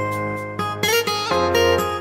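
Background music: a melody of pitched notes changing every half second or so, some with a small bend in pitch.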